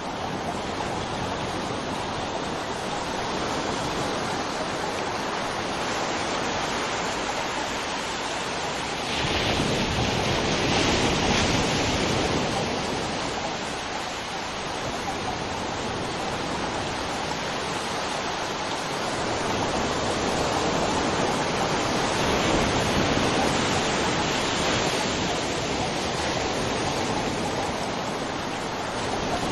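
River water flowing over rocks in a steady rush, swelling louder for a few seconds about a third of the way in and again later.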